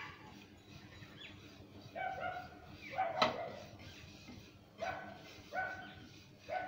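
A dog barking, five short barks spread through the last two thirds, over the light scraping of a wooden spatula stirring dry-roasting semolina in a pan.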